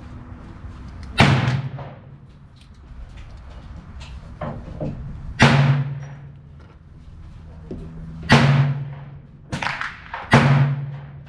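Taurus Model 66 .22 LR revolver fired four times, a few seconds apart, each shot a sharp crack with a short low ring after it. Fainter cracks come in between.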